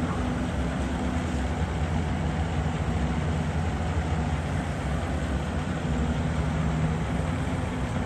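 Tracked excavator's diesel engine running steadily: an even, low drone with no breaks.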